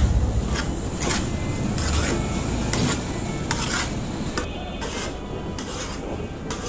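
Hands mixing chunky spiced potato samosa filling in a wide metal bowl: repeated rubbing and scraping strokes of the mix against the metal, about two a second.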